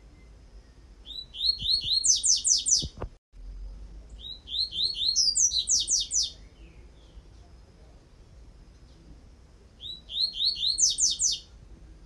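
Double-collared seedeater (coleiro) singing the 'tui-tui' song type: three short phrases of rapid, repeated high notes, each starting on a lower run and stepping up to higher notes partway through.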